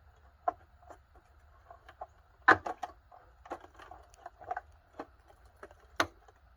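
Dehumidifier parts being handled during disassembly: irregular knocks and taps, the loudest about two and a half seconds in and another near the end.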